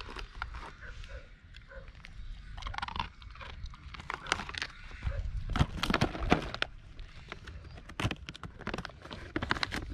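Animals eating, with irregular crunching and clicking.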